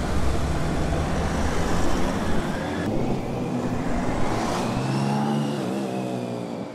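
An Audi A6 saloon and a line of police motorcycles pulling away and driving past, engines revving up as they accelerate, the rise in pitch clearest about five seconds in.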